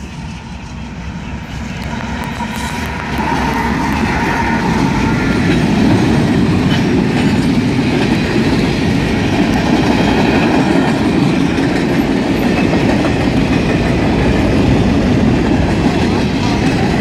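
Freight train led by a Union Pacific diesel locomotive approaching and passing close by, growing louder over the first three seconds. Then a steady sound of tank cars and boxcars rolling past, with their steel wheels running on the rails.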